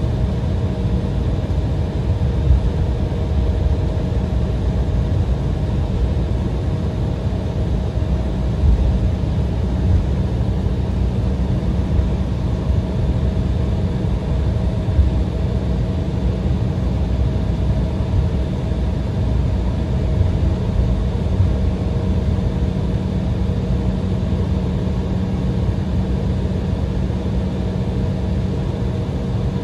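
Steady cabin rumble of an Embraer ERJ-175 taxiing on the ground, its engines at idle, with an even low hum and a few light thumps.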